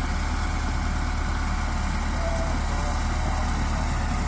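Bulldozer's diesel engine running steadily at a low idle-like pace, a deep even drone with no revving or knocks.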